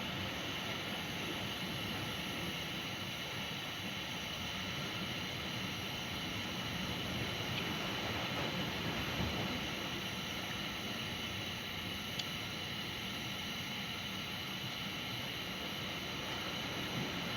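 Steady wash of ocean surf and wind on an open beach, swelling slightly about halfway through.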